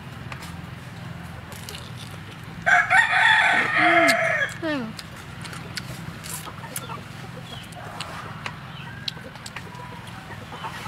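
A rooster crows once, about three seconds in, a pitched call of about two seconds that falls away at the end.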